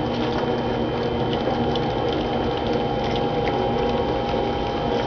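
A litter of 3½-week-old goldendoodle puppies lapping and smacking at soft puppy food in shared dishes: a steady run of many small wet clicks.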